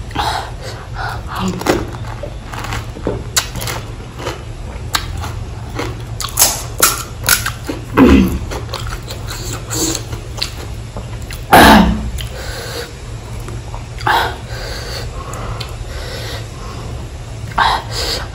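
Close-miked chewing of pani puri: crisp puri shells crunching and wet mouth sounds from the spicy filling water, in a string of short crackles with a couple of louder crunches about eight and twelve seconds in.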